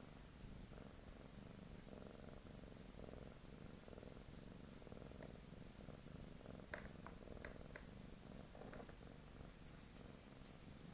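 Domestic cat purring softly and steadily, the purr swelling and easing with each breath. A few faint clicks about two-thirds of the way through.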